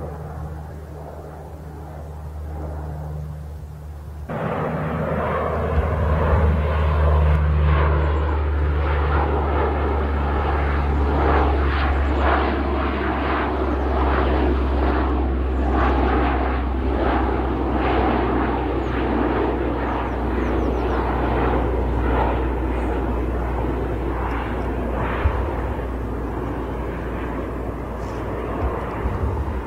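Lockheed C-130 Hercules flying low overhead on its four Allison T56 turboprop engines: a deep propeller drone that grows sharply louder about four seconds in, then eases off a little near the end.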